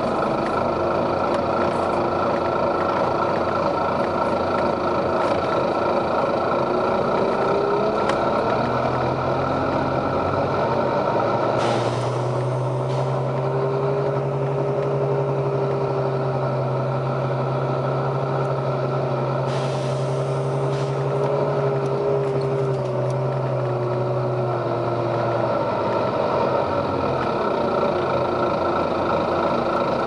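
Volvo B9TL double-decker bus heard from inside, its six-cylinder diesel engine and drivetrain running, with the drone rising in pitch early on and falling near the end. Twice, at about twelve and twenty seconds in, a short burst of compressed-air hissing comes from the bus's air system.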